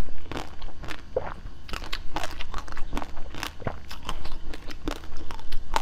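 Close-up biting and chewing of a hard-coated pink ball treat on a stick: a string of irregular, crisp crunches as the coating cracks between the teeth.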